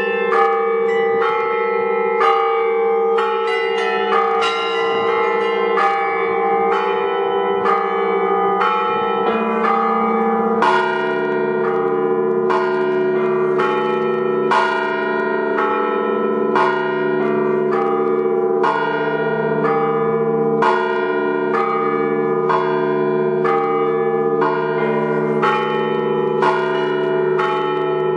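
Russian-style ringing on a belfry of many bells: small bells struck quickly over repeated strokes of larger bells, all ringing on into each other. About eleven seconds in, a deeper bell joins the pattern.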